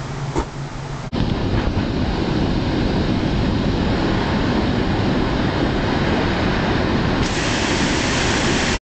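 A short sharp knock, then about a second in a loud steady rush of water pouring over a stone river weir takes over, turning hissier near the end.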